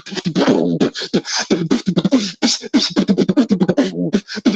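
Beatboxing: a fast, dense run of mouth-made drum sounds with a hummed pitched tone underneath, broken off briefly about four seconds in.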